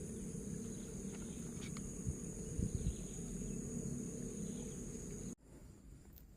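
Insects droning in a steady, even high tone over a low outdoor rumble, with a few faint knocks; the whole sound cuts off abruptly about five seconds in.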